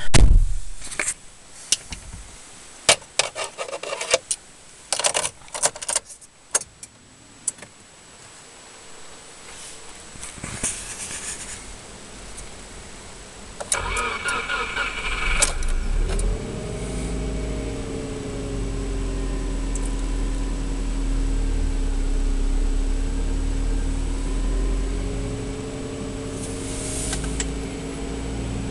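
Subaru Forester's 2.0-litre flat-four boxer engine started from cold at about −7 °C. Sharp clicks and knocks come first. About halfway through, the starter cranks for a second or two, then the engine catches and settles into a steady fast cold idle near 2,000 rpm, heard from inside the cabin.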